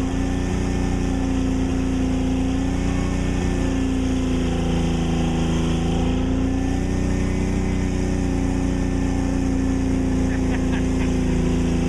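A mud-bogging pickup truck's engine running at steady revs, its pitch wavering slightly, while the truck sits stuck to its axles in deep mud.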